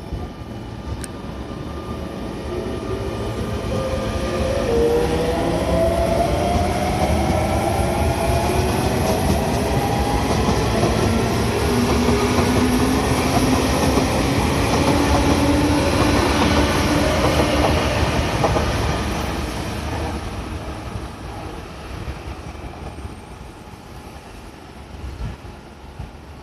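Sotetsu electric commuter train running past, building to a loud rumble of wheels on rails with a rising whine, then fading away after about 19 seconds.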